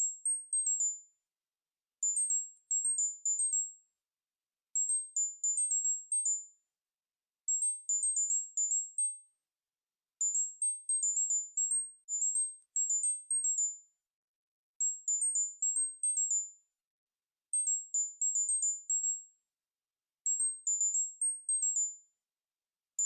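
Synthesized tinnitus-relief tone pattern: very high-pitched electronic beeps in quick runs of about eight to ten notes hopping up and down between a few close pitches, each run repeating about every two and a half to three seconds with silence between.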